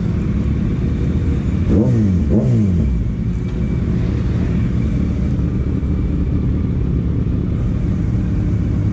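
Sport motorcycle engine idling steadily, with two quick throttle blips about two seconds in.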